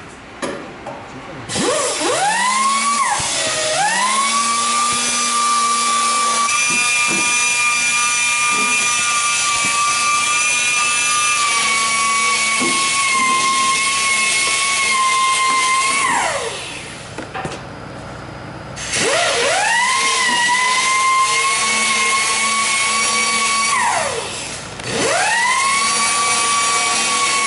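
High-pitched power tool running free: it whines up to speed, holds a steady pitch, winds down, and starts up again twice.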